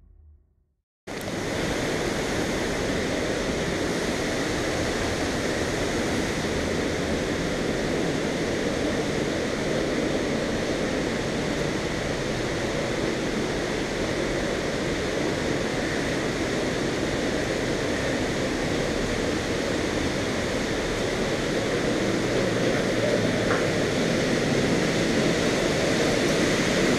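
Steady rushing roar of a waterfall in a rock gorge. It cuts in suddenly about a second in and grows slightly louder near the end.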